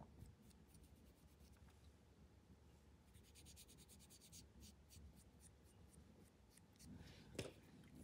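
Faint, quick scratching and ticking of a small applicator rubbing effect pigment powder into a gel nail tip, thickest in the middle, with one slightly louder tick near the end.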